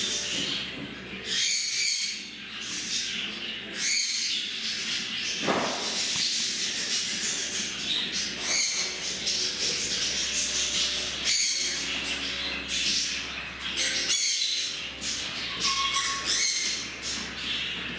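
Small parrots chattering, with frequent high chirps and squawks overlapping one another, over a steady low hum.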